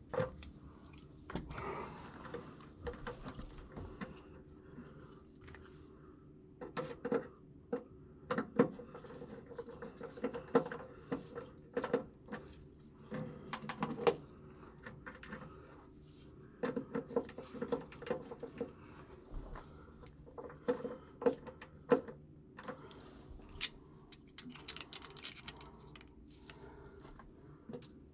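Irregular clicks, taps and light metallic rattles of hands working with tools and small parts, in clusters with short pauses between, over a faint steady hum.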